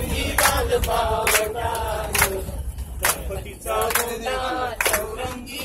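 A group of bus passengers singing together in chorus, with hand claps keeping time about once a second, over a steady low rumble from the bus.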